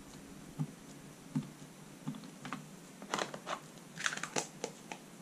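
A plastic-cased StazOn ink pad dabbed again and again onto a stamp on a stamping platform to ink it: a string of light, irregular taps and clicks, closer together in the second half.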